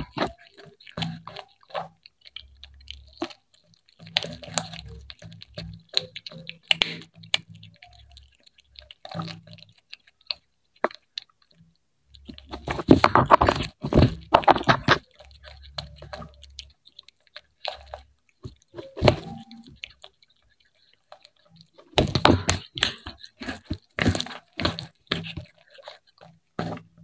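Cat chewing fried fish close to the microphone: crisp crunching and biting in bouts of a few seconds, with short pauses between, the longest bouts about halfway through and near the end.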